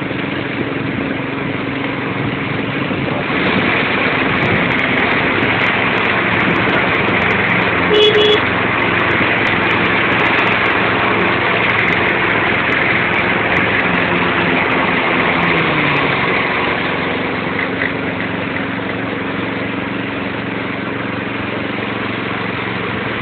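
Fiat Panda 4x4's engine running at low speed in rough going, heard from inside the car, with sharp knocks and rattles over the bumps. The engine note rises a few seconds in and drops back around sixteen seconds, and a short, louder sound stands out about eight seconds in.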